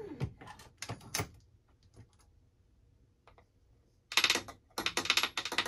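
A few sharp clicks from a Hornady Lock-N-Load AP reloading press and Bench Rest powder measure being worked, then three short bursts of loud rattling clatter about four seconds in, as the first powder charges are thrown and discarded.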